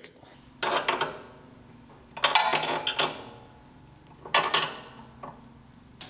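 A wrench tightening a loose blade guide wheel on a Wood-Mizer LT35 sawmill: metal clicks and clanks in three short bursts about two seconds apart.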